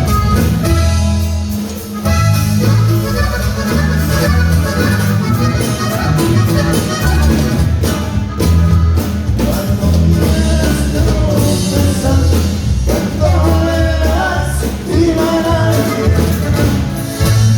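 Norteño band music: accordion melody over a steady bass and drums, with some singing.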